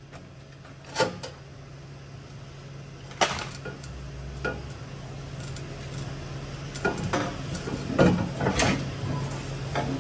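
Scattered metal clinks and clanks of tools and parts being handled, busier and louder near the end, over a steady low hum.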